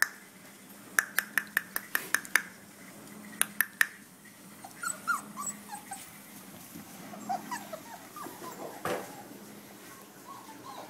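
Portuguese water dog puppies whimpering and squeaking in many short, high, wavering cries. In the first few seconds, two quick runs of sharp ticks come first, and a single knock comes later.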